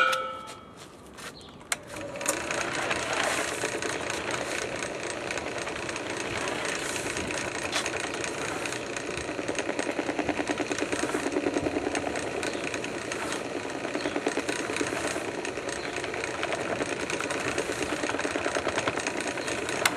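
A sharp click, then a drill press starts about two seconds in, turning a steel dough hook through bread dough in a rotating propane-tank bowl. It runs steadily with a fast, even rhythm and stops at the end.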